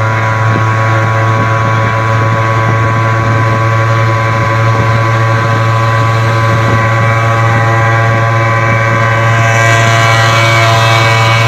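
Suzuki two-stroke engine running hard at a constant high rev, one steady buzzing note with no gear changes, with a rise of hissing road and wind noise near the end.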